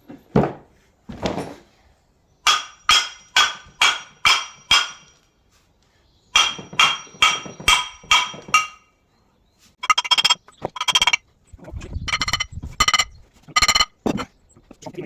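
A hammer striking a Land Rover Defender's old brake disc, which is due for replacement. The blows come in runs of about six, roughly two a second, and each one rings with a bright metallic tone.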